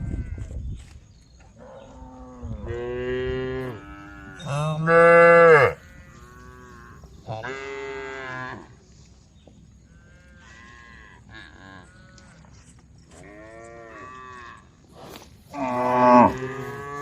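Several cows mooing in turn: a series of long, drawn-out calls at different pitches, some overlapping. The loudest come about five seconds in and again near the end.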